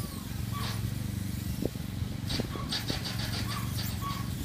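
Steady low hum of a small motor, the drive of a lure-coursing machine pulling the lure line, with high squeaks and chirps over it. A quick run of chirps comes about two and a half seconds in.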